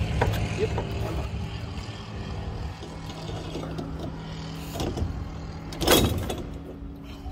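Thick rubber bungee-cord loops being levered over the steel pegs of an Auster's undercarriage leg: small knocks and scrapes of the tool and gear, with a sharp clunk about six seconds in. A steady low mechanical hum runs underneath.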